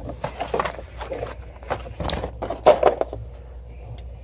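Plastic clicks, snaps and scraping as a tabbed plastic part is pressed and worked free from a car door panel, a quick burst of handling noises that stops about three seconds in.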